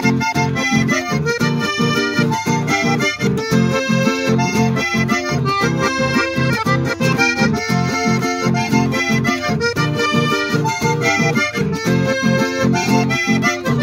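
Button accordion playing a lively tune: a melody on the treble buttons over a steady, rhythmically pulsing bass-and-chord accompaniment.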